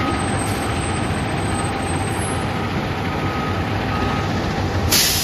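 Fire engine's diesel engine running steadily with a low rumble, a faint beeping warning tone repeating about once a second over it. Near the end a sharp, short burst of air hiss.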